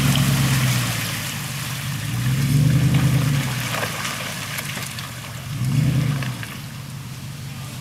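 SUV engine revving in surges about every three seconds as the 4x4 climbs out of a muddy creek crossing up a steep bank, the throttle rising and falling under load. Faint splashing and crackle of mud and water under the tyres.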